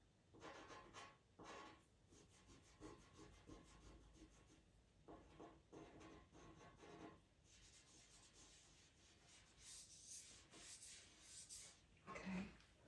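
Faint scratching and rubbing of a white pastel on Pastelmat paper, in several short runs of quick strokes with pauses between.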